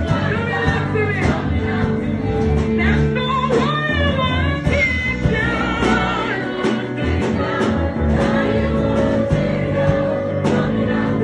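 Gospel worship song: wavering, melismatic singing over a band with sustained keyboard or guitar chords and a steady beat.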